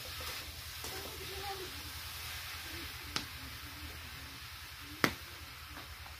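Steady background hiss with faint distant voices, and two sharp clicks about two seconds apart, the second the louder.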